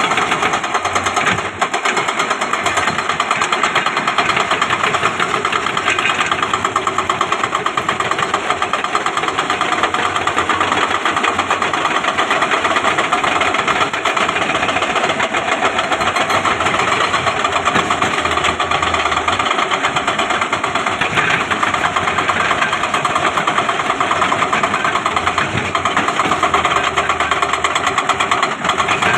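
Excavator's diesel engine running steadily with a fast, even pulsing.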